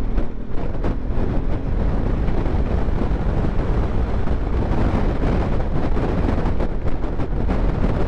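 Heavy wind buffeting an action-camera microphone on a moving motorcycle in a dust storm, a steady rushing roar with the bike's engine running beneath it.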